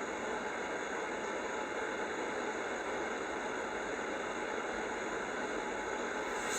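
Steady hiss of background noise, even throughout, with no speech.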